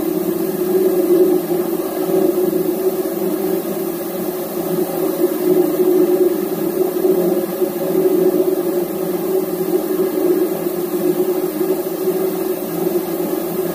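Steady drone of shipboard machinery running, with a strong low hum over an even rushing noise.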